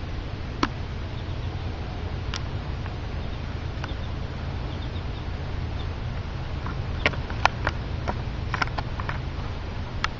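Scattered sharp clicks and taps of a small animal moving about in an enclosure, sparse at first and busiest about seven to nine seconds in, over a steady low hum.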